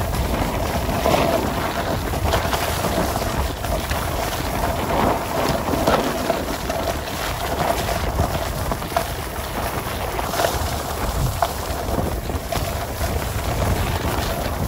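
Snowboard sliding and carving over packed, tracked snow: a continuous hiss of the base and edges scraping the surface, swelling in short surges, with wind buffeting the microphone.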